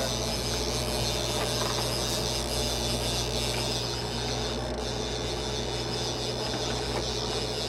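A fishing reel being cranked steadily, its gears giving a continuous fine ratcheting whir, over the low steady hum of the boat's engine at trolling speed.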